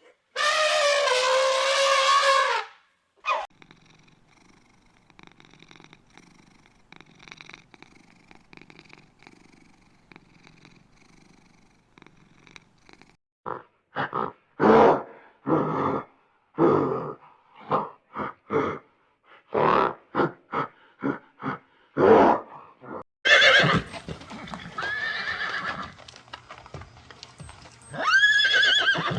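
Equine calls: a long whinny falling in pitch, then after a quiet stretch a run of short separate calls about twice a second, and more whinnies near the end.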